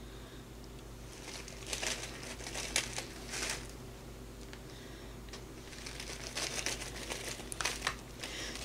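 Crinkling of a torn-open Hershey chocolate bar wrapper in the hands, in short scattered rustles, as pieces of chocolate are broken off and sprinkled onto a cake.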